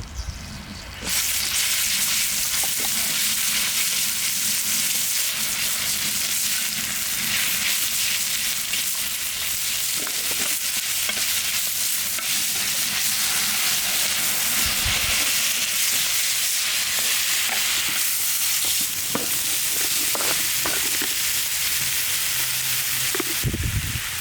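Food sizzling steadily as it fries in a hot pan. The sizzle starts suddenly about a second in, with a few faint knocks from time to time.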